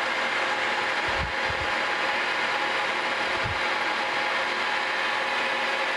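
Vertical milling machine running with a 1/4-inch end mill cutting into a metal plate, a steady hum and whine over cutting noise, as the pocket is taken a little deeper to clear a cap screw head. A few low thumps come about a second in and again past the middle.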